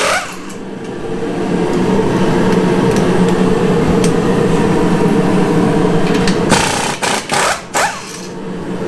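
Air compressor running steadily with a dense mechanical buzz, broken by a few brief sharp gaps near the end.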